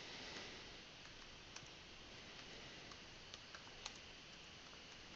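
A few faint, irregular computer-keyboard key clicks as a short entry is typed, over quiet room tone.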